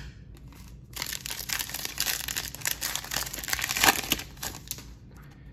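Foil wrapper of a Select football trading-card pack being torn open and crinkled by hand: a dense crackling starts about a second in, with the loudest crackle near the end.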